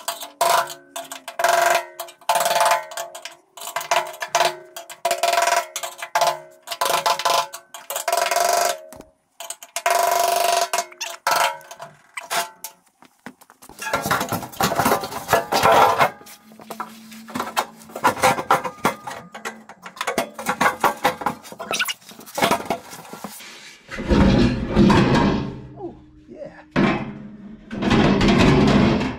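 A brass hammer taps a screwdriver against the fuel sending unit's lock ring on a steel gas tank: many quick ringing metal strikes, turning the ring to seat the unit. After that come irregular metal knocks and clatter, then heavy scraping and thumps near the end as the tank is fitted up under the truck.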